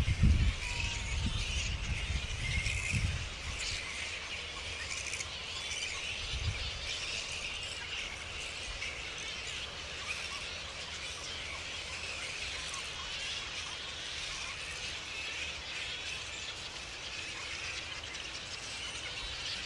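A roosting colony of flying foxes chattering, a dense continuous chorus of many short, high squeaky calls. A low rumble is heard in the first three seconds.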